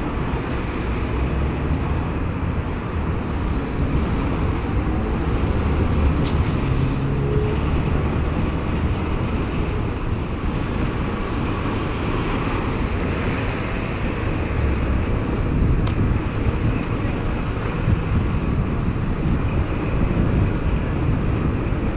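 Road traffic noise: cars passing on the street, a steady low rumble.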